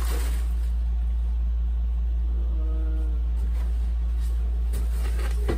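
A steady low hum, with faint rustling of plastic wrap and styrofoam packing as a foam model-airplane fuselage is handled, once at the start and again near the end.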